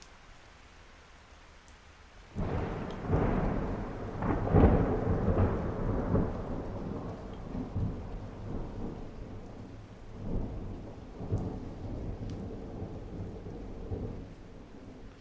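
Thunder over falling rain: a peal breaks in suddenly about two seconds in, swells into a long rolling rumble, and slowly dies away with a few further rolls.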